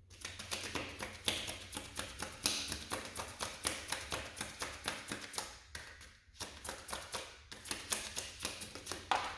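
A deck of tarot or oracle cards being shuffled by hand: a rapid run of sharp card-on-card clicks and flicks, with a few brief pauses partway through.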